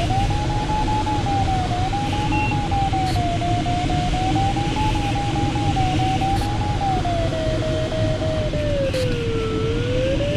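Glider variometer's audio tone: one unbroken note that slowly rises and falls in pitch as the climb rate changes, dipping lowest near the end. Under it runs a steady rush of airflow noise in the cockpit.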